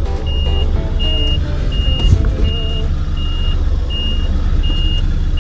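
Truck reversing alarm beeping steadily at about three beeps every two seconds, over a diesel truck engine running.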